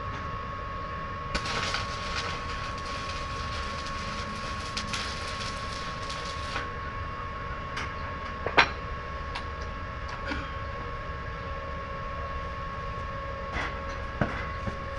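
Stick-welding arc crackling and hissing for about five seconds, starting and stopping abruptly, over a steady machine hum. Scattered sharp clicks and taps of metal follow.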